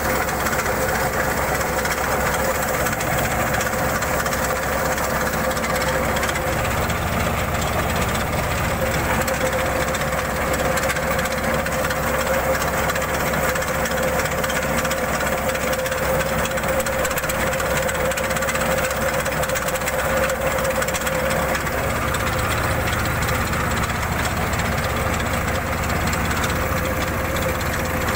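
Swaraj 834 XM tractor's diesel engine running steadily under load, driving a Malwa paddy thresher as sheaves are fed into its spinning drum, with a constant hum over the engine's low rumble.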